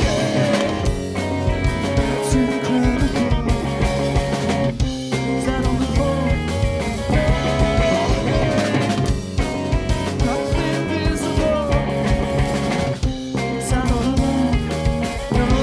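Live rock band playing loud, with a pounding drum kit, electric guitar and bass.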